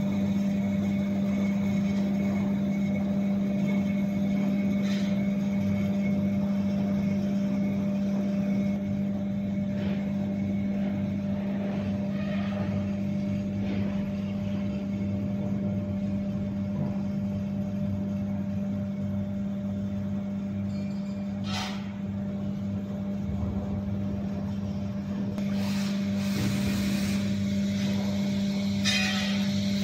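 Steady machinery hum with a strong low tone and a fainter higher tone, from electric-motor driven equipment running. A sharp click sounds about two-thirds of the way in.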